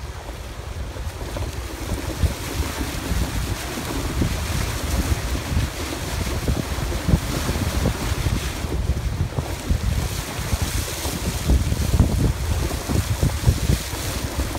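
Toyota 4Runner driving slowly through a shallow stream running over a gravel road: water splashing and hissing under the tyres over a low rumble of engine and tyres jolting on stones, with wind noise on the microphone.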